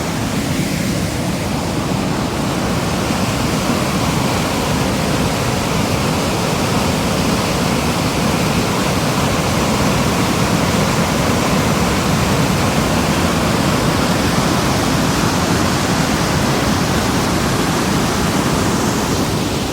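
Steady, unbroken rushing of water, loud and even throughout.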